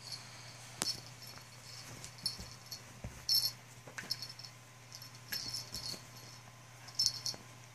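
Papillon puppy tussling with a plush toy: a dozen or so short, high, rattly scuffling noises and a few sharp clicks at irregular intervals, over a low steady hum.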